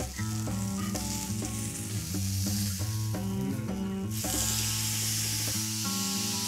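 Thick bavette steak sizzling as it sears in a hot enamelled cast-iron skillet, handled with metal tongs. The sizzle swells about four seconds in, as the steak is turned onto its other side. Background music plays underneath.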